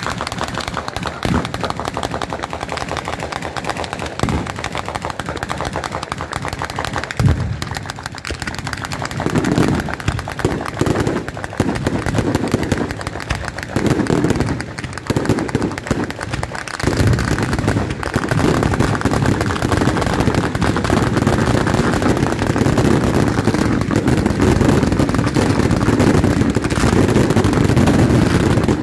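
Bolognese-style fireworks battery firing: rapid crackling firecrackers with occasional louder bangs, coming in clusters about a third of the way in, then merging into a dense continuous barrage that grows loudest near the end.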